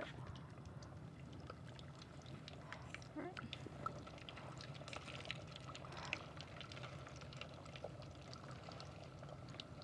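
Faint crackling and sizzling of potato strips deep-frying in hot oil in a Presto GranPappy electric deep fryer, with scattered small pops over a steady low hum.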